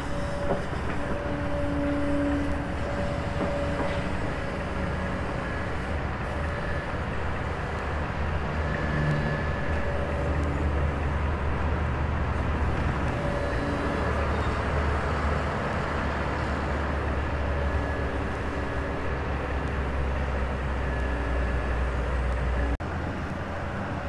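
Kobelco hydraulic excavator working: a steady, low diesel engine drone with higher steady tones that come and go as the machine moves. The drone drops off abruptly near the end.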